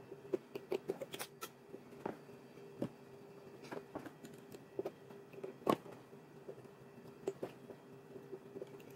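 Hands handling a leather rifle scabbard and its stitching thread during a hand-sewn repair: scattered small taps, clicks and rubs at an uneven pace, the sharpest about two-thirds of the way through, over a steady faint hum.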